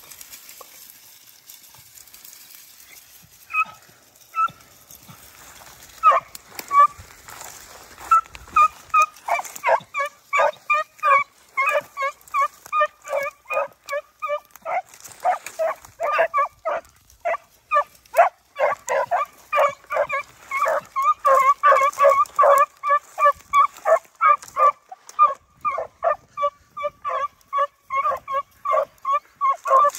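Beagle baying on a rabbit's trail: short, sharp yelps, a few at first, then a rapid, nearly unbroken string of several a second from about six seconds in.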